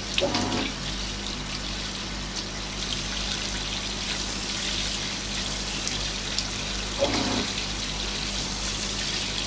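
Water from a handheld shower head running steadily as a dog is rinsed in a bathtub. Two brief louder sounds stand out, one right at the start and one about seven seconds in.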